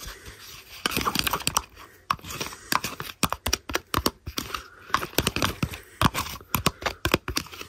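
Metal spoon stirring hand soap in a thin plastic deli container: quick, irregular clicks and scrapes of the spoon against the plastic.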